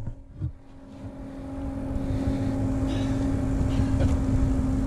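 A steady engine drone holding one pitch, growing louder over the first two seconds, with a low rumble underneath and a single knock about half a second in.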